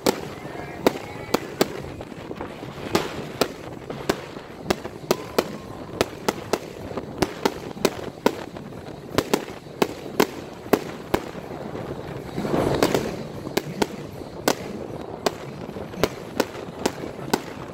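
Aerial fireworks going off: a dense, irregular string of sharp bangs and pops from rockets and shells bursting, a few a second. About thirteen seconds in there is a longer, louder burst of noise.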